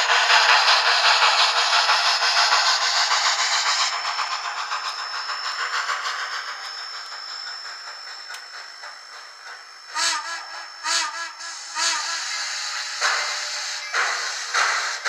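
Simulated steam locomotive sounds from a Soundtraxx Tsunami2 sound decoder through a model's small speaker. Rapid exhaust chuffs fade away over several seconds. Then come three short steam-whistle toots about a second apart, followed by longer whistle blasts near the end.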